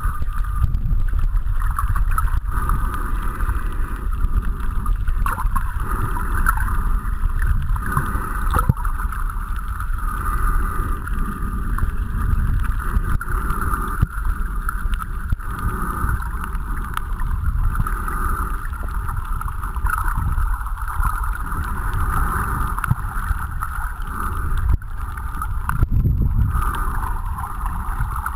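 Muffled water noise heard through a camera held underwater: a steady low rumble with a constant hiss on top.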